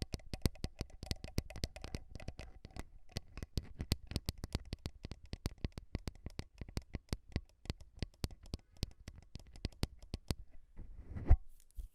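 Close-miked ASMR tapping: quick, irregular light taps, about five a second, that stop about ten seconds in, followed by a single louder thump on the microphone.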